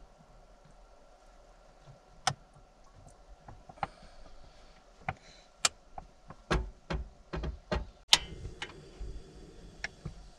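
A plastic baby spoon stirring food in a small saucepan on a portable gas stove, giving scattered sharp clicks and knocks as it scrapes and taps the pot, with a run of louder taps in the second half.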